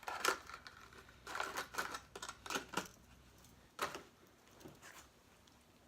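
Lure packaging being handled and opened: irregular crinkling and tearing in bursts, dying away near the end.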